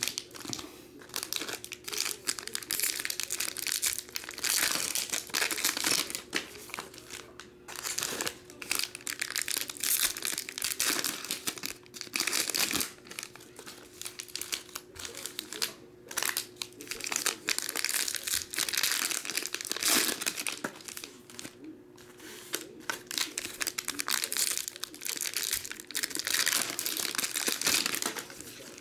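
Foil trading-card pack wrappers crinkling and rustling as packs are torn open and handled, a long run of irregular crackles, with a faint steady hum underneath.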